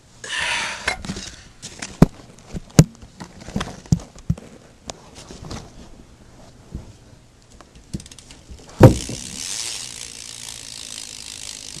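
Knocks and clicks as the BMX is handled, then a loud thump about nine seconds in, after which the rear Salt Pro hub's freewheel ticks rapidly and quietly as the back wheel spins.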